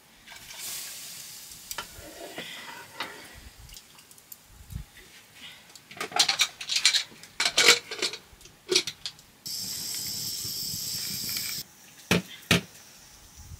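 Pots and metal utensils clattering and scraping, then a steady sizzle for about two seconds that cuts off suddenly, followed by two sharp knocks.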